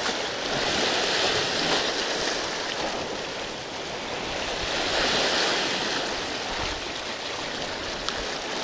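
Rough sea surf breaking and washing over the rocks at the shore: a continuous rushing that swells about the first two seconds and again about five seconds in.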